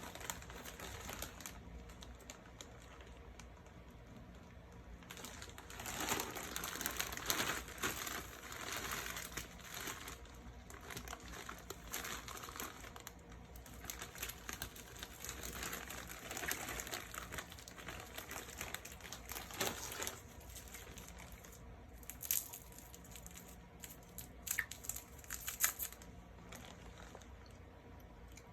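Plastic wrapper crinkling as it is handled and unwrapped, in irregular bursts with a few sharp clicks near the end.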